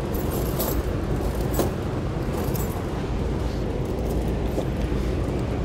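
Steel tire-chain links clinking now and then as the chain is handled and hooked, over a steady low rumble.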